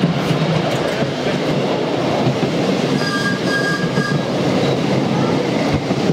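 Miniature railway passenger train rolling along ground-level track, heard from a ride-on carriage: a steady rumble of small wheels on the rails. A faint high squeal comes about three seconds in.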